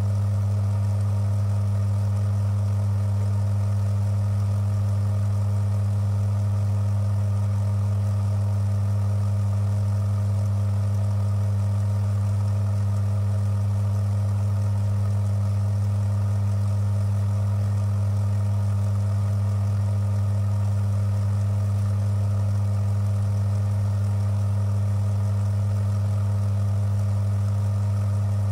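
Electric motor of a bench lubricity (friction) tester running steadily, driving a brass roller under eight weights in the test oil: an unchanging low hum with a fainter higher overtone.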